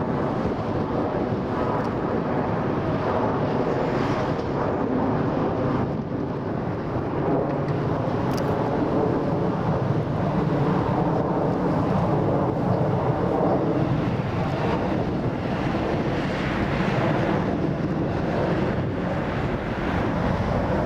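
Jet engines of an Airbus A330-200 airliner at takeoff, a loud steady rumble, with strong wind buffeting the microphone.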